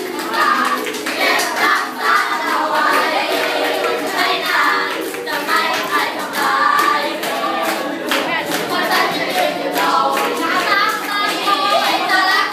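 A group of students singing together, accompanied by strummed ukuleles and hand clapping.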